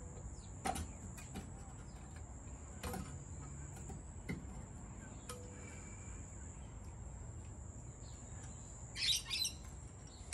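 Faint, scattered clicks and scrapes of a paint scraper cutting through a plastic push-button rod, with a short burst of bird chirping about nine seconds in.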